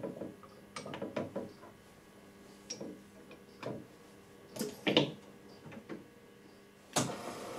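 Clicks and knocks as the sample holder is fitted on a metallurgical grinder-polisher, with the loudest clunks about five seconds in as the individual-load rods come down onto the samples. Near the end a sharp click and then a steady rushing noise begin.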